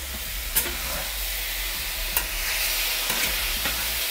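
Diced pork tenderloin sizzling steadily in a hot cast iron pan as a metal spatula stirs it, with a few sharp clicks and scrapes of the spatula against the pan.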